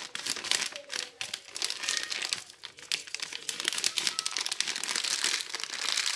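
Thin plastic bag of flocão (flaked corn meal) crinkling and crackling as it is handled and squeezed while being emptied.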